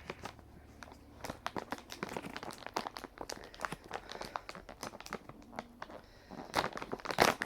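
Resealable plastic M&M's candy bag crinkling as it is handled and opened, with irregular crackles throughout that grow louder near the end.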